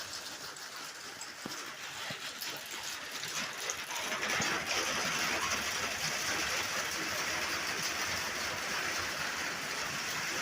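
Heavy rain drumming on a tin roof as a steady hiss of drops; the downpour gets louder about four seconds in and then holds.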